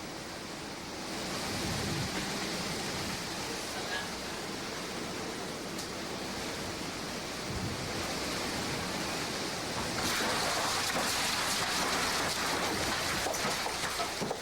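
Hurricane Iniki's wind and driving rain make a steady rushing noise. It swells about a second in and grows louder and hissier about ten seconds in.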